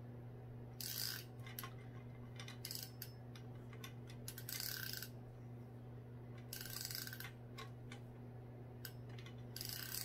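Spinning reel's drag clicking as fishing line is pulled off against it with the bail closed and the drag backed off a notch or two, in about five short spells of half a second each, over a steady low hum.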